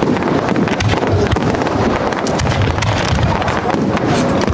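Dense professional firework barrage: a continuous low rumble of launches and bursts with many sharp pops and crackles layered over it.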